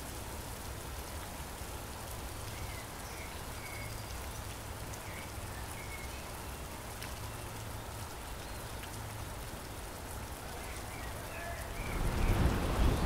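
Steady rain falling, with a few faint short chirps through it. About twelve seconds in, a louder low rushing rumble swells in.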